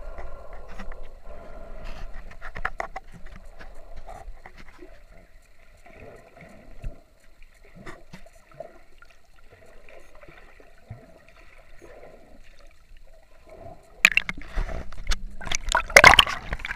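Muffled underwater gurgling and water noise picked up by a submerged camera, with scattered small clicks. About fourteen seconds in, louder splashing and sloshing starts as the camera nears the surface.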